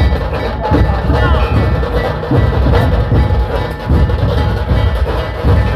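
A band of large dhol drums beaten with sticks, playing a loud, driving rhythm together.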